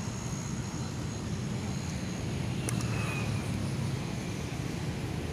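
Steady low outdoor background rumble, with one sharp click about two and a half seconds in.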